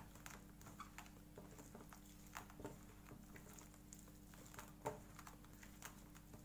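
Faint, irregular soft pats and clicks of a hand mixing and squeezing shredded cabbage with flour in a steel bowl, with a sharper tap about five seconds in.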